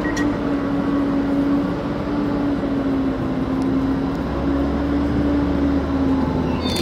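Greater Anglia Class 755 train standing at the platform, its power equipment running with a steady hum that slowly drops in pitch. A deeper rumble joins about four seconds in, and a brief high squeak comes near the end.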